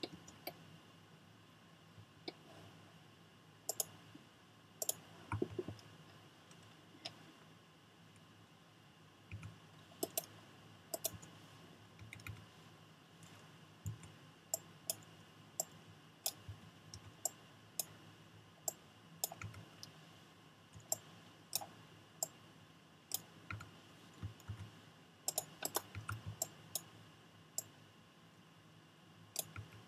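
Computer mouse buttons clicking irregularly, singly and in quick pairs, with a quick flurry of clicks late on, over a faint steady hum.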